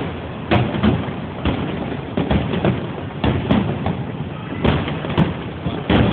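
Fireworks display: an irregular series of booms and cracks from shells bursting, about one or two a second.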